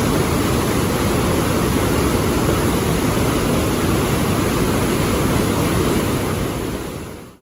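Dawson Falls, a broad waterfall on the Murtle River, rushing steadily: a dense, low-pitched roar of falling water that fades out near the end.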